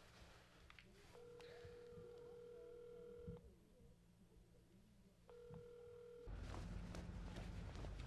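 Telephone ringback tone on the calling line: a steady tone rings for about two seconds, pauses for about two, and starts again for a second. About six seconds in it cuts off and a louder rumbling noise with scattered ticks takes over.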